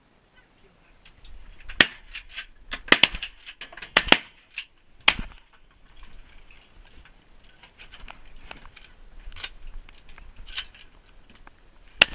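A series of sharp cracks and knocks: single ones about two and five seconds in, quick clusters around three and four seconds, and a few more later.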